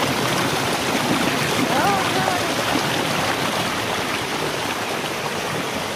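River water rushing over rocks and pouring onto people sitting in a small cascade: a steady, loud rush. A voice briefly calls out about two seconds in.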